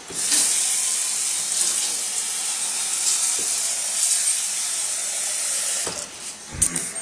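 Water running from a kitchen tap, a steady hiss that starts suddenly and is shut off about six seconds in, followed by a couple of short knocks near the end.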